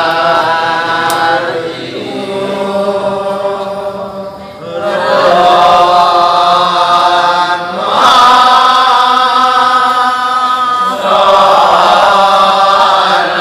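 Kecak chant: a large chorus of voices chanting together in long held phrases that shift pitch every few seconds.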